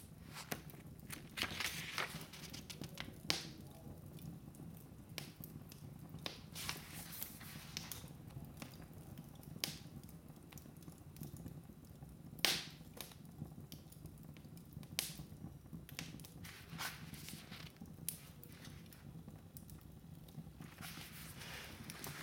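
Wood fire crackling in a fireplace: irregular sharp pops and snaps from the burning logs, the loudest about twelve seconds in.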